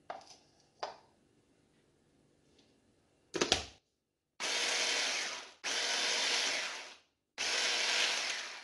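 A 1000 W electric food chopper run in three short pulses of about a second each, its blade churning buttery biscuit crumbs. Before the pulses, a couple of light clicks and a clunk as the motor unit goes onto the lid.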